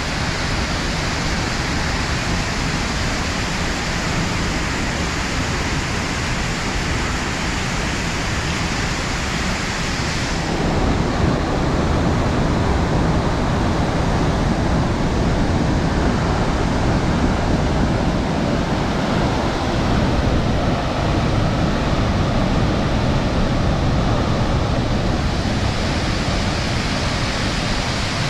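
Vernal Fall's water plunging onto the rocks below: a loud, steady, dense rush. About ten seconds in the rush turns deeper and a little louder.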